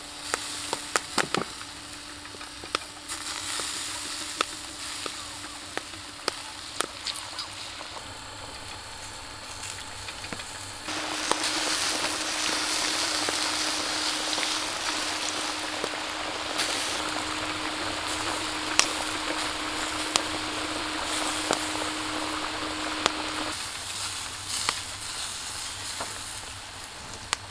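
Charcoal fire under a spit-roasting salmon, crackling with sharp pops as fat drips onto the coals. About eleven seconds in, a loud, steady sizzle of potatoes deep-frying in oil in a cast-iron pan takes over. Near the end it gives way again to the quieter crackling of the coals.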